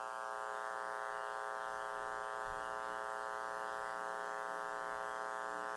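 Steady electrical mains buzz from the microphone and sound system, with a soft low thump about halfway through.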